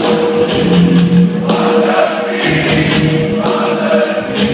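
Live band playing a party song with a steady drumbeat of about two beats a second, while the audience sings along in chorus.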